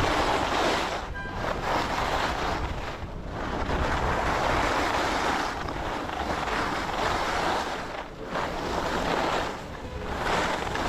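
Skis scraping and carving on packed snow through a series of turns, swelling in each turn and dipping briefly between them about every two seconds, with wind rushing over the camera microphone.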